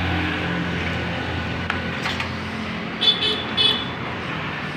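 Honda TMX 125 Alpha's single-cylinder four-stroke engine idling steadily during a tune-up. About three seconds in come two short, high toots.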